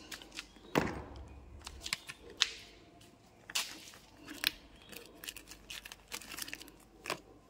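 Scattered sharp clicks and taps of parts being handled on the rear of a motorcycle, with a duller knock about a second in.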